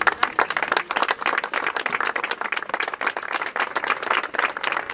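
Applause: a group of people clapping, many quick overlapping claps.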